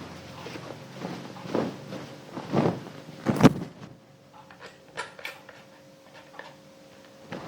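Ironing clothes with an electric iron: three swelling rushes of noise about a second apart, the third the loudest, followed by a run of light clicks and knocks as the iron and cloth are handled.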